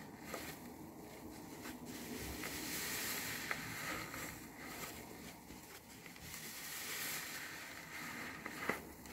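A new car sponge squeezed and kneaded in thick soapy lather: wet squishing and crackling foam that swells twice with the squeezes, with a sharp wet click near the end.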